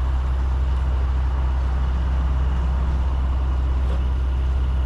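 A vehicle engine idling steadily: a constant low drone that does not change.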